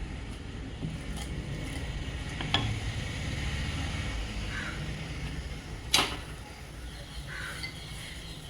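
Two sharp knocks of kitchen utensils, a lighter one about two and a half seconds in and a louder one about six seconds in, over a low steady hum.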